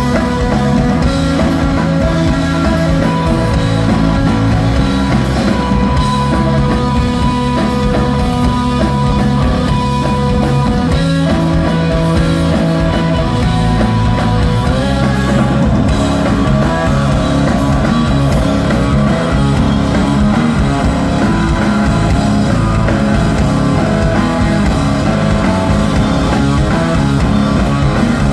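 Stoner rock played live by a trio of electric guitar, bass guitar and drum kit, loud and continuous, with held guitar notes over a heavy bass and drum groove.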